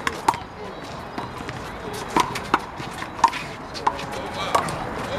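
A one-wall handball rally: the rubber handball is smacked by hand and strikes the wall and the court, about seven sharp smacks at uneven intervals.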